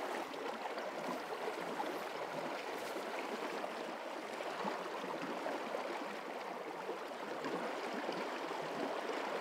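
Steady rush of a fast, shallow river flowing and swirling around the legs of wading anglers.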